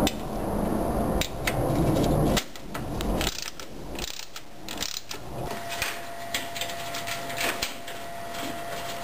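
Hand-tool work on a car's horn mounting: loud rubbing and handling noise for the first couple of seconds, then scattered clicks and knocks of a socket wrench and metal parts as the 12 mm horn bolt is worked loose.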